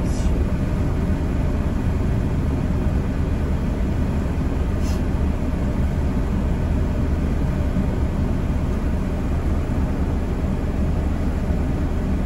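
Semi truck's diesel engine running steadily, a low rumble heard from inside the cab, with a brief high squeak about five seconds in.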